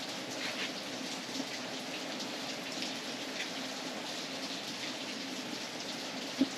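Steady rain, with many separate drop impacts heard close by and a single brief knock near the end.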